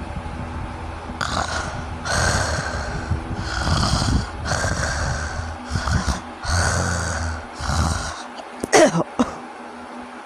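A sleeping person snoring in a run of noisy breaths about once a second, then one loud, brief sound with a sliding pitch near the end; the uploader presents the snoring as obstructive sleep apnea.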